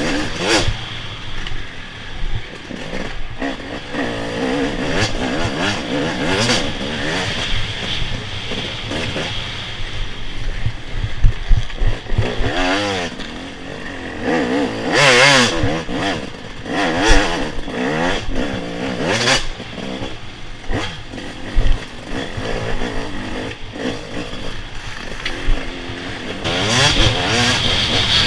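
Dirt bike engine revving up and down again and again as it is ridden hard, with rattles and knocks from the bike over rough ground, including a couple of sharp loud knocks about eleven seconds in.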